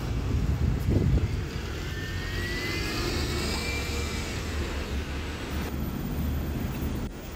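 A double-decker bus's engine runs as it drives up and turns, with a rising whine in the middle and a low thump about a second in, over general street traffic.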